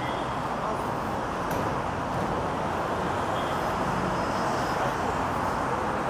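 Steady noise of city road traffic: cars and taxis running along a busy road.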